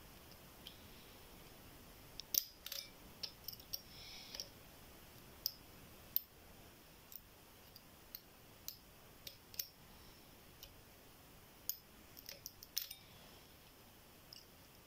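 Small metallic clicks and ticks of a flag pick working the pins of a 10-pin Euro dimple lock under light turning tension, in irregular clusters, loudest about two and a half seconds in and again near thirteen seconds.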